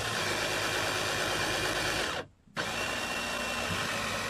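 Cordless drill motor driving a homemade electric helm steering linkage, running steadily with a faint whine. It stops about two seconds in and starts again half a second later.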